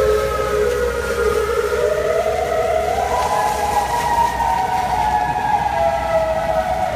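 Outdoor civil defense warning siren wailing, its pitch climbing slowly about two seconds in, holding high, then sinking again near the end.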